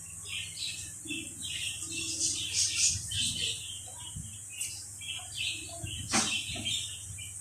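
A bird chirping over and over in short, quick calls, with a few faint clicks of handling.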